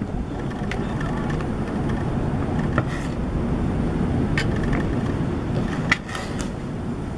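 A knife tapping and scraping as chopped tomatoes are pushed from a wooden cutting board onto a plate: a few scattered clicks, the sharpest about six seconds in. Under it runs a steady low rumble of background noise.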